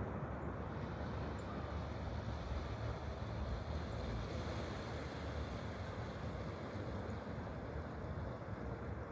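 Steady rushing of flowing water, an even noise with a deep low rumble under it.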